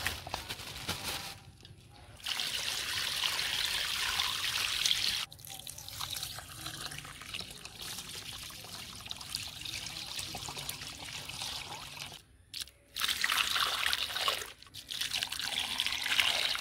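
Water running and trickling, in spells: strong from about two seconds in, softer through the middle, then strong again after a brief stop near the end.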